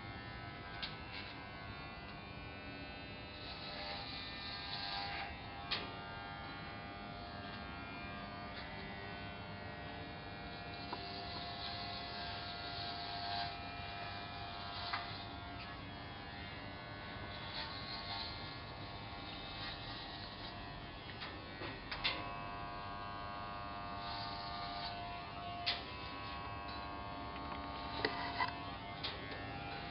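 Corded electric hair clippers buzzing steadily as they cut hair, growing louder in stretches every few seconds, with a few sharp clicks along the way.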